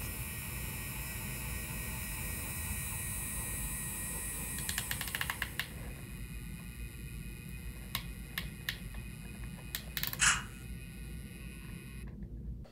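Small DC motor of an H0-scale Zugspitzbahn rack-railway model locomotive running with its sound functions off, giving a steady hum with a faint high whine for the first five seconds or so. A quick cluster of clicks follows, and then several isolated clicks over a quieter background.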